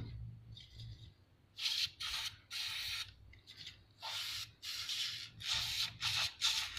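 Aerosol spray can with a red straw nozzle hissing in a series of short spurts, starting about one and a half seconds in, as it is sprayed into a sewing machine's bobbin hook.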